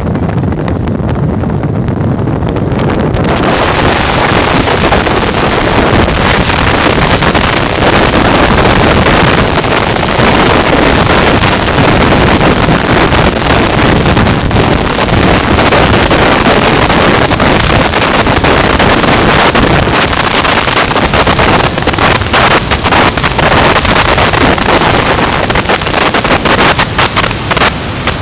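Heavy wind noise rushing over the microphone of a phone held out from a moving motorcycle, a loud steady rush. It gets louder and brighter about three seconds in and turns gusty and uneven near the end.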